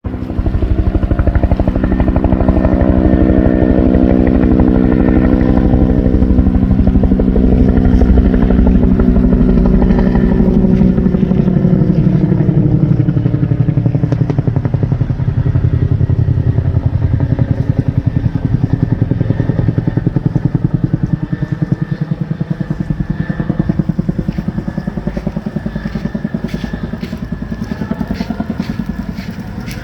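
Helicopter water bomber flying past close by, its rotor chopping rapidly over a strong engine hum. Partway through the pitch drops as it passes, and the sound fades steadily as it moves away.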